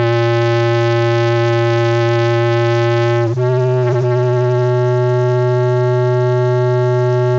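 Microphone feedback through a bass amplifier: a loud, steady, buzzy howl that drives a salt-covered bass drum head. About three seconds in it wavers and settles on a slightly different pitch.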